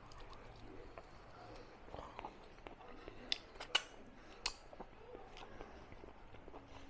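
A person chewing food near the microphone, with a few sharp clicks or cracks a little past the middle.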